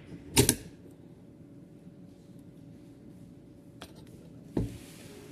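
Two sharp knocks about four seconds apart, the first a quick double, with a faint click just before the second. A faint steady hum runs underneath.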